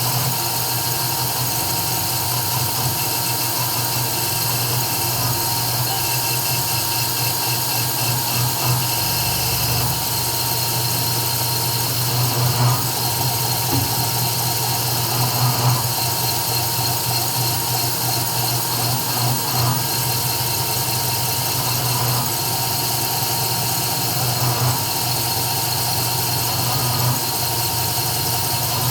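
CNC 3040 desktop router running an engraving job: a steady machine hum with a thin whine, rising in short louder swells every two to three seconds as the cutter works.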